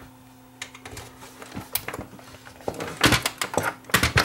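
Clicks, knocks and rattles of RCA cable plugs and the open DVD player's metal chassis being handled, a few scattered at first and coming thick and fast in the last second and a half, over a faint steady hum.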